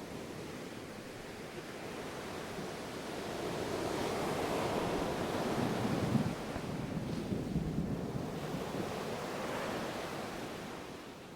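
Ocean surf washing in: a wave swells up to a peak about halfway through, then fades away toward the end.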